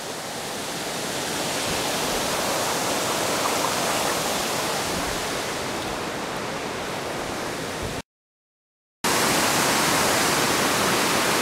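Water pouring over a low mill dam spillway, a steady rushing with no let-up except for about a second of complete silence some eight seconds in.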